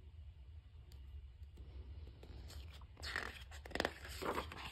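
Paper rustling as a picture book's page is turned: a few short, soft swishes about three seconds in, over a faint steady hum.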